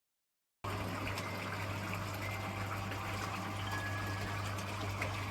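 Silent for about half a second, then an abrupt start of running water over a steady low hum, as from an electric pond pump running.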